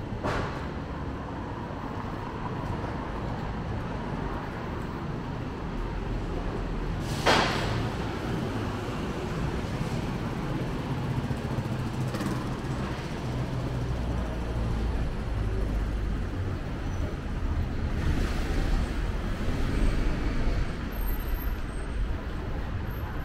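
Street traffic: a steady low rumble of passing vehicles, with a short sharp hiss about seven seconds in and a fainter one around twelve seconds.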